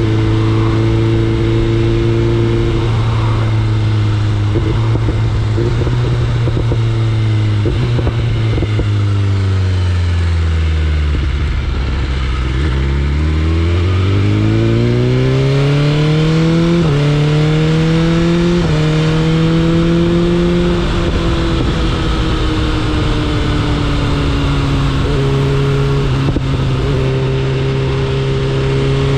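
BMW S1000RR inline-four engine under way: steady at first, then the revs fall away as the bike slows, and about halfway through it accelerates again, the pitch climbing through two quick gear changes before settling into a steady cruise. A constant rush of wind and road noise runs underneath.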